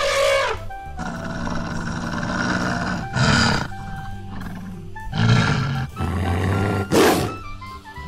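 Animal calls over steady background music: the end of a pitched, trumpet-like elephant call in the first half second, then three short, harsh calls about two seconds apart.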